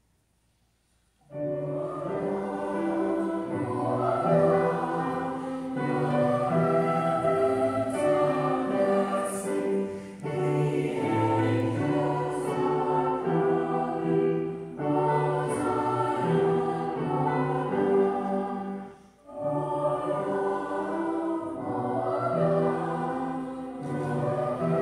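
Children's choir singing, coming in sharply about a second in after near silence, with a brief pause about three quarters of the way through before the singing resumes.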